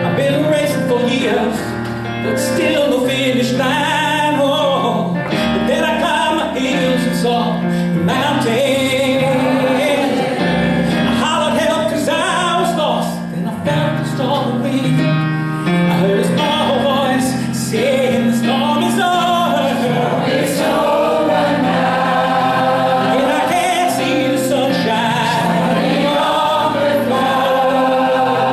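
Gospel choir singing with keyboard accompaniment, sustained bass notes underneath.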